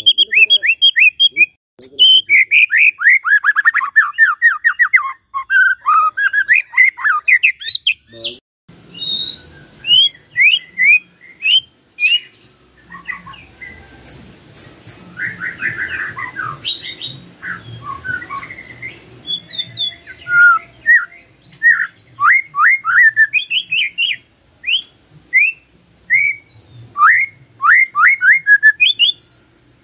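White-rumped shama singing: loud phrases of rapid, sweeping whistled notes and chirps, with short pauses between the phrases. About eight seconds in, a faint low background rumble comes in under the song.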